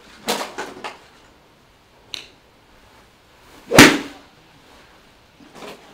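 Golf iron striking a ball off an artificial turf hitting mat: one sharp crack a little under four seconds in. It follows a few fainter taps and shuffles in the first second.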